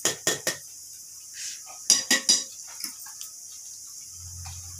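Oiled hands rolling minced mutton into kofta balls, with short clinks and wet slaps: three quick ones at the start and three more about two seconds in.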